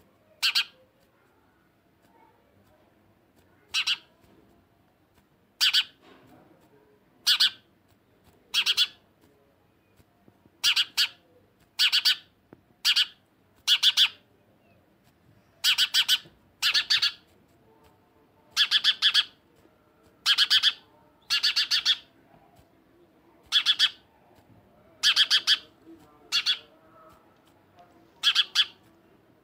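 House sparrow calling: a series of about twenty short, harsh chirps at irregular intervals, some in quick pairs.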